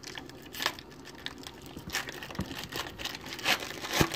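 Foil wrapper of a Topps 2018 Series 1 baseball card pack being torn open and crinkled, in irregular rustles and sharp crackles, the loudest about three and a half and four seconds in.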